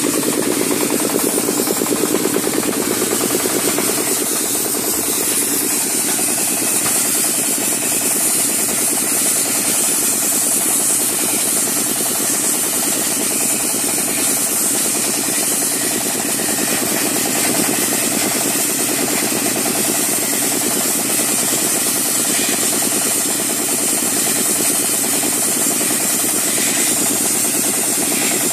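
Wet sandblaster running, its nozzle jet giving a loud, steady hiss of water and abrasive against a steel surface, over a steady machine drone.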